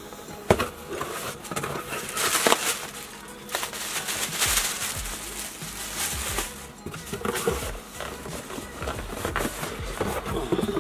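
Unboxing noise: a utility knife slitting the packing tape on a cardboard shipping box, then the flaps pulled open and a boxed accessory set slid out, with rasping cardboard and a few knocks and clicks.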